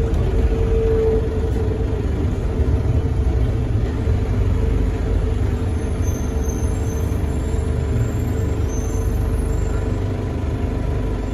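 Bombardier Innovia APM 100 people mover running on its rubber tyres along the concrete guideway, heard from inside the car: a steady low rumble with a constant hum over it.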